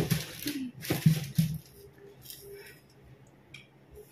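Rustling and handling of sneakers and their cardboard shoe box as the shoes are taken out: a few short scraping, rustling bursts in the first second and a half, then only faint handling sounds.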